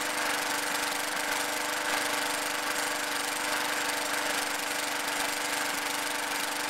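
Briggs & Stratton 450 series lawn mower engine running at a steady idle, no longer surging up and down now that its governor spring has been replaced.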